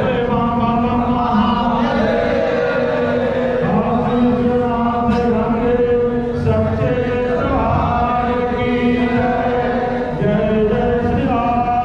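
Hindu devotional aarti chanted by a male voice through a microphone, in long held notes that slide between pitches, with other voices joining in.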